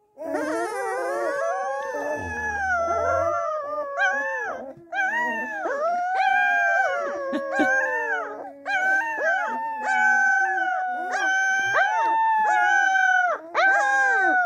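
Springador (springer spaniel × Labrador) puppies howling. Several overlapping high howls come at first, then mostly one puppy gives a string of short rising-and-falling howls, about one a second.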